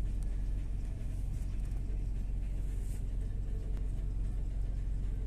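Steady low rumble of a moving road vehicle, engine and tyre noise heard from inside the cabin.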